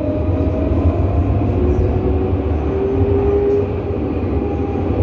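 Electric tram running along its track, heard from on board: a steady low rumble of wheels on rails with the motors' whine climbing slowly in pitch.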